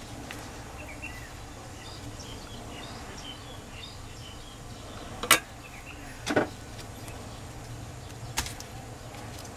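Hand-wrapping sounds of a rice dumpling being bound in leaves and tied with cord, with three sharp snaps about five, six and eight seconds in, the first the loudest. Faint bird chirps over a steady low hum in the first few seconds.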